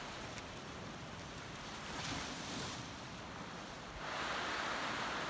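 Surf washing over a rocky shoreline: a steady rush of waves, with a swell about 2 s in and growing louder from about 4 s on.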